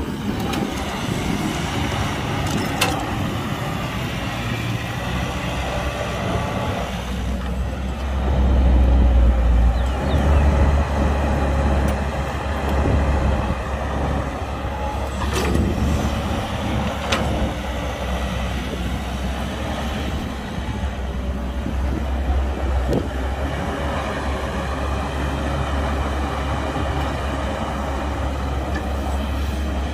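CAT 312 tracked excavator's diesel engine running under load while it digs and swings, with a low rumble that swells for a few seconds early in the middle. A few sharp clanks of the bucket and dirt against the steel come through now and then.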